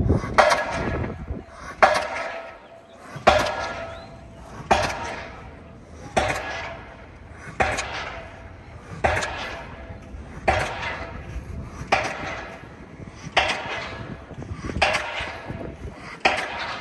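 Pile-driving hammer striking a pile for the pier, a loud clanging impact with a metallic ring about every second and a half, around a dozen strikes in steady rhythm.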